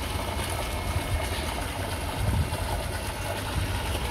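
A motor running steadily with a low hum under a faint hiss.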